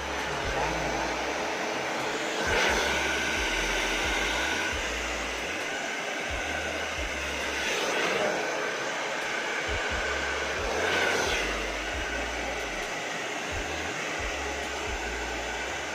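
Handheld hair dryer running: a steady rush of air over a motor whine, with a few swells in loudness about 3, 8 and 11 seconds in.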